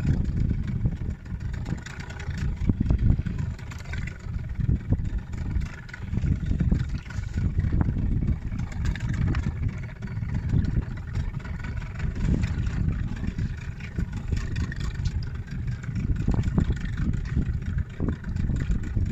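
Small fishing boat's outboard engine running steadily while underway, under gusty wind rumbling on the microphone.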